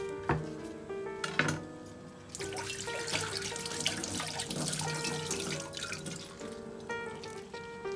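Kitchen tap running into the sink for about four and a half seconds, starting a little over two seconds in. Before it there are two sharp knocks, and soft background music with plucked and keyboard notes plays throughout.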